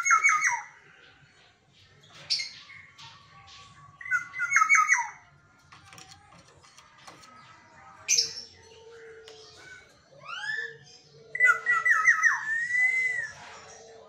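Black-naped oriole calling: a series of about six short calls a second or two apart, each a run of quick repeated notes, some with fast rising sweeps. The longest call comes near the end and closes with a drawn-out arching note.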